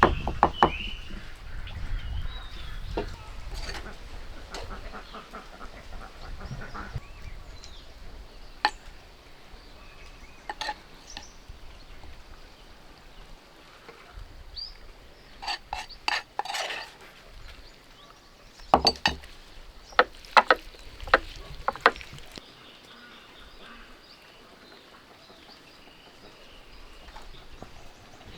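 Ducks calling now and then among scattered sharp knocks and clatter, with a cluster of loud knocks in the second half.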